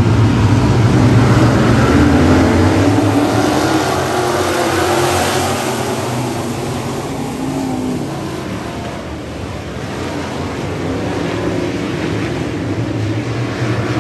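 A pack of dirt-track stock cars running together, engines revving up as the field accelerates. The sound is loudest while the cars are close, fades as the pack goes to the far side about nine seconds in, then builds again near the end.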